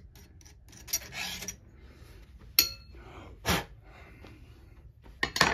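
A last short rasp of a round chainsaw file on a chain tooth about a second in, then a sharp metallic clink that rings briefly, followed by a couple of knocks as the file is lifted off the chain.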